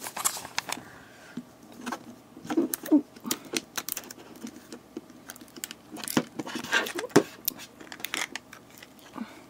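Hard plastic 5 Surprise Mini Brands capsule balls being handled and twisted apart on a tabletop: irregular plastic clicks, knocks and rattles, busiest about three seconds in and again from about six to eight seconds in.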